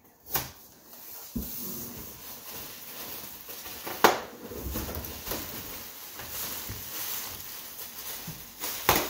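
Rustling and crinkling of packing material and bubble wrap in a cardboard box as an item is dug out and lifted, with several knocks against the box, the loudest about four seconds in.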